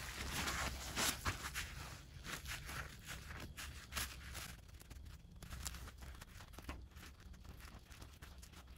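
Gloved fingers rubbing a small plastic odometer gear inside a paper shop towel to clean debris from its teeth: faint, irregular rustling and scratching, a little stronger in the first second or so.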